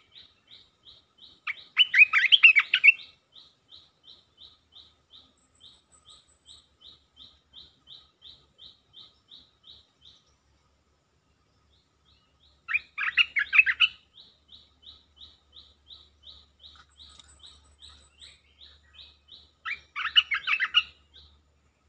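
A bulbul sings three short, loud, bubbling phrases: about two seconds in, about thirteen seconds in, and near the end. Under them runs a steady series of high chips, about two a second, with a gap in the middle, and twice a brief very high trill.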